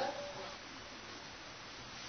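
A pause in speech: faint, steady hiss of background noise, with the last word fading out at the very start.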